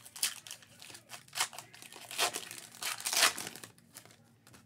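Foil wrapper of a Panini Select trading-card pack crinkling and tearing as it is opened by hand, in a series of short rustling bursts, the loudest about three seconds in.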